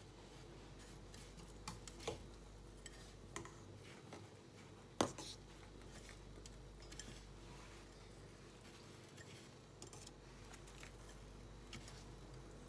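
Faint rustling of dry toasted crumbs as fingers roll soft quark balls through the coating in a glass dish, with scattered light clicks and one sharper tap about five seconds in.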